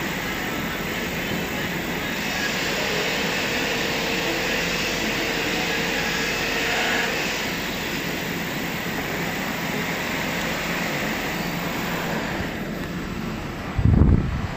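A machine's spinning wheel running, giving a steady even noise. About a second before the end there is a short, loud low thump.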